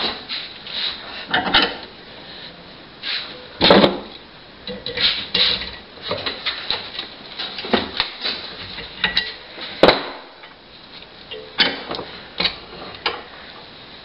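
Irregular metal clicks and knocks as a small nail is worked into a U shape at a bench vise, with two louder knocks about four and ten seconds in.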